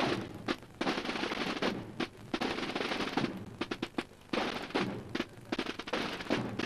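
Marching drums of a cornet-and-drum band playing a march cadence: stretches of fast rolls about a second long broken by sharp single strokes.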